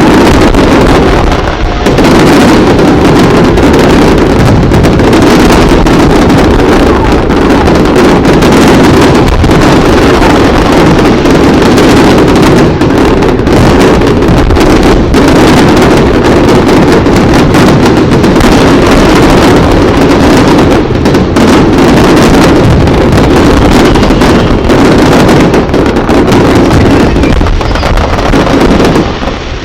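A dense, continuous fireworks barrage, loud enough to overload the microphone, so that the many bursts blur into one steady din with crackles on top. It stops abruptly at the very end.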